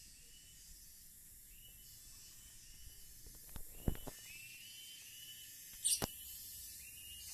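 Quiet outdoor background: a steady high hiss with a short chirp repeating in small runs, a few sharp clicks around four seconds in, and a louder, brief sharp sound about six seconds in.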